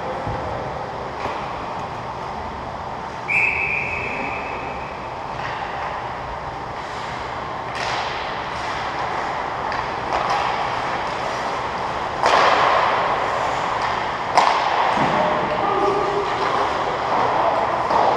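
Ice hockey game ambience in an indoor rink: a steady wash of skating noise and distant shouts, broken by sharp clacks of sticks and pucks, the loudest about fourteen seconds in. About three seconds in, a referee's whistle sounds once, briefly.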